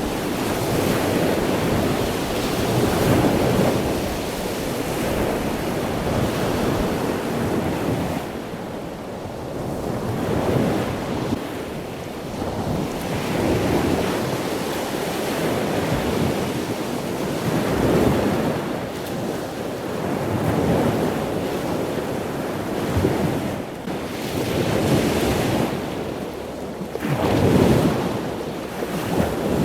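Surf washing onto a shoreline, swelling and easing every few seconds, with wind buffeting the microphone.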